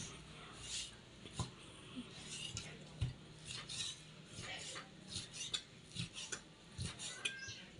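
Kitchen knife cutting pork on a chopping board: irregular sharp knocks against the board mixed with scraping and rasping strokes, the loudest knock about three seconds in.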